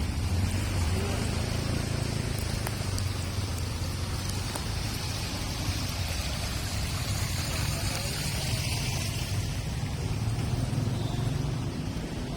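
Street traffic: vehicle engines running and passing, with tyre hiss on a wet road that swells in the middle.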